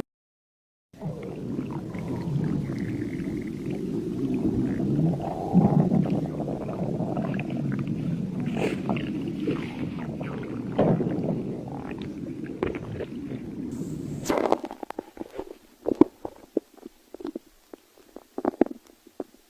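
Human stomach growling. It starts about a second in with one long continuous low rumble, and near the end it breaks up into a run of short, irregular gurgles and pops.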